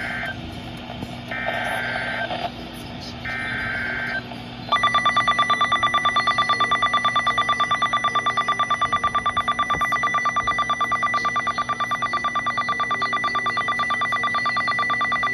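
NOAA Weather Radio SAME digital header: short, raspy bursts of data tones, about a second each. About four and a half seconds in, the loud 1050 Hz warning alarm tone starts and holds steady with a fast flutter. Together they mark the start of a new warning broadcast.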